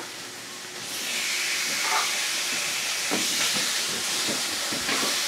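Food sizzling in a hot frying pan, a steady hiss with a few faint knocks over it.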